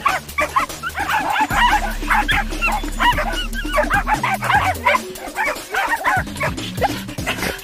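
Dogs giving many short, high yips and whines, several a second, over background music with a beat.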